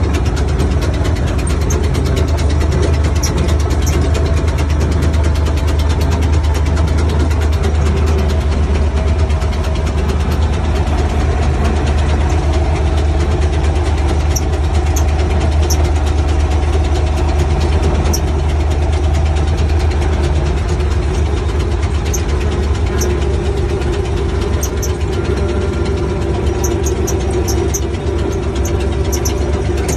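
Tractor diesel engine running steadily under way, heard from inside the cab: a constant low hum with small sharp ticks now and then.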